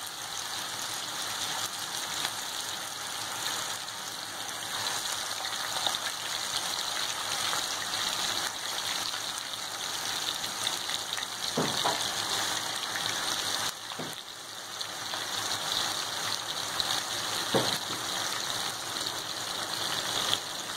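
Chicken pieces deep-frying in hot oil in a non-stick pan: a steady sizzle of bubbling oil, with three short knocks spread through it.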